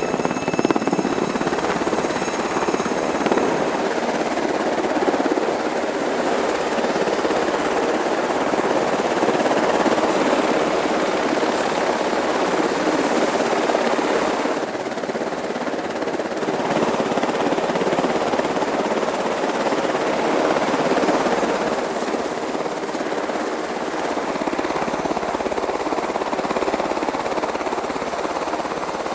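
UH-60 Black Hawk helicopter's rotors and turbine engines running, a steady heavy noise as the helicopters hover, land and idle on the ground with rotors turning.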